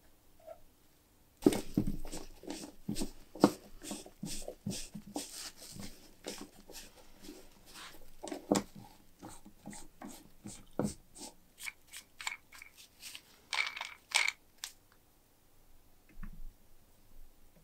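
Rustling, crinkling handling noise of a rag and rubber-gloved hands rubbing stain onto the wooden crank knob of a hand-cranked pencil sharpener, in quick irregular strokes. A few short squeaks come late on, and the rubbing stops about three seconds before the end.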